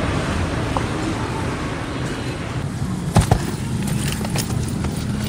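Steady outdoor street-traffic noise. About two and a half seconds in, the sound changes to two heavy thumps, then the quick footfalls of someone running on grass.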